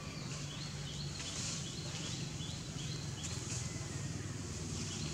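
Outdoor ambience: a series of short high chirps repeating about every half second, over a steady low hum and a faint high hiss.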